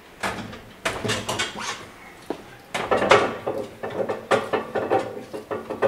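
Cast-iron screw press being unscrewed by its handwheel to release a pack of wet paper sheets and felts: irregular creaks, clicks and knocks of metal and board, coming in clusters about a second in, around three seconds and again near the end.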